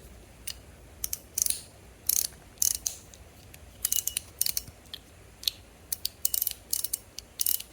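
Metal EDC fidget toy being worked in the hand, its mechanism giving irregular sharp metallic clicks, some single and some in quick ratcheting clusters.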